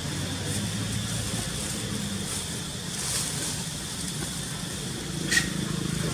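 A steady low engine hum, with a few faint crackles and one sharp click about five seconds in.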